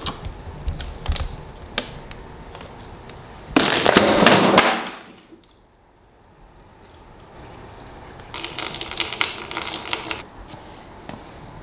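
Water being dumped through a 3D-printed plastic toilet for a final flush: clicks and knocks of the plastic parts being handled, a loud rush of water about three and a half seconds in, then water splashing out of the flush spout onto the plastic near the end.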